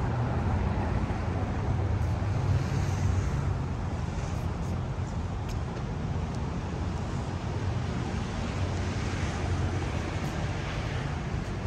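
Steady city street traffic: cars and their engines running past in a continuous wash of noise, with a low rumble underneath.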